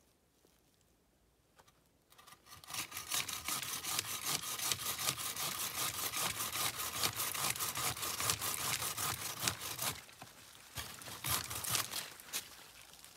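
Hand saw cutting through wood with fast, even strokes, starting about two seconds in and stopping about ten seconds in, followed by fainter crackling and rustling.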